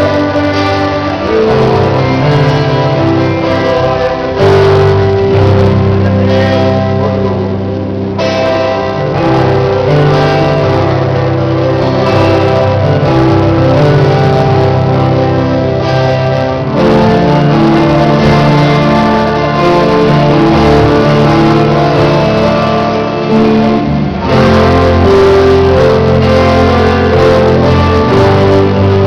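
Gospel band music playing continuously, with guitar among the instruments.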